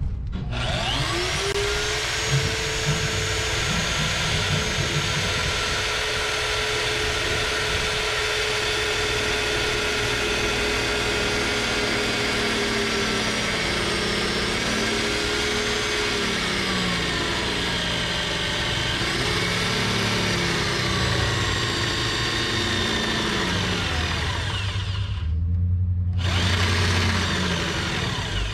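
Power drill running under load through the whole stretch, boring bolt holes for a bolt-on subframe connector. Its motor pitch holds steady for a while, then rises and falls as the load changes, with a brief drop in the higher part of the sound near the end.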